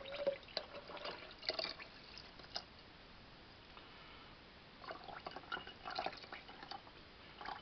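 Pickle brine poured from a glass jar through a plastic funnel into another glass jar, trickling and dripping in scattered small splashes, with a lull midway and a second flurry of splashes near the end.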